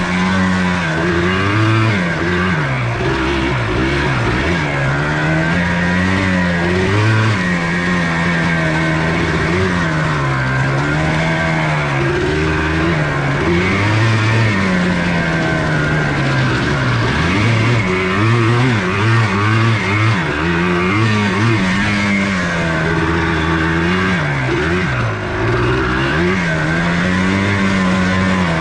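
1994 Yamaha Blaster 200's single-cylinder two-stroke engine being ridden hard, its pitch rising and falling over and over as the throttle is opened and closed.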